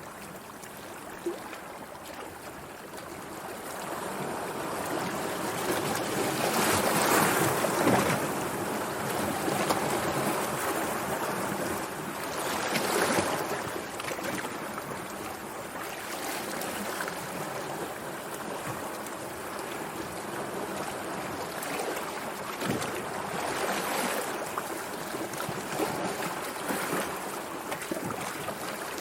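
Sea waves breaking and washing in, rising and falling in slow swells, the loudest about seven and thirteen seconds in.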